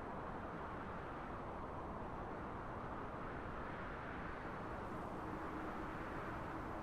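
Steady wind: an even, low rush of noise with no distinct gusts.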